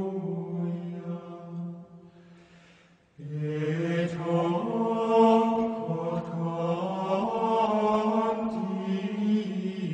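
Plainchant: voices singing a slow, sustained melody. One phrase fades out about two seconds in, and a new phrase begins about three seconds in.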